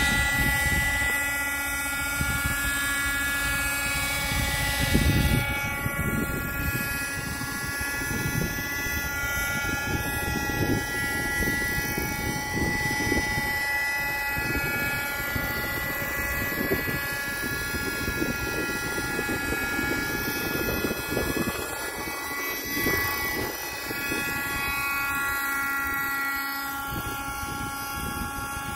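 Radio-controlled model helicopter hovering: a steady high whine from its rotor drive made of several even tones, holding nearly the same pitch with only small shifts.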